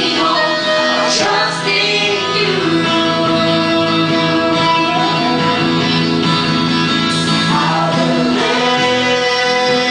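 A small live band playing a song, with a woman and a man singing into microphones over the instruments, including a drum kit. Long notes are held with no break.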